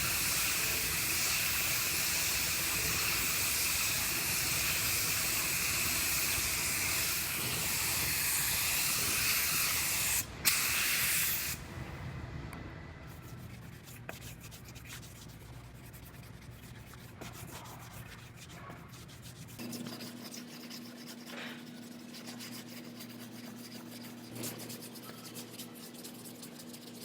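Compressed-air spray gun spraying primer: a loud, steady hiss that breaks off briefly and then stops about eleven seconds in. After it come quieter, irregular rubbing and scratching sounds.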